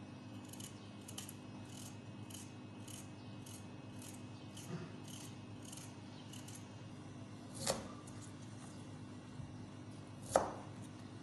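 Hand vegetable peeler scraping a carrot in short, even strokes, about two a second. Near the end come two sharper knocks, the second as a knife cuts down through a white radish onto a plastic cutting board.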